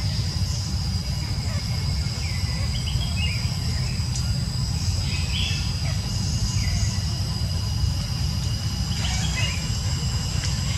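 Insects droning in steady high-pitched tones, with a few short chirps scattered through, over a steady low rumble.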